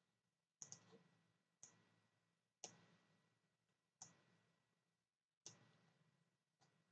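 Faint computer mouse clicks, about six short clicks a second or so apart, over near silence.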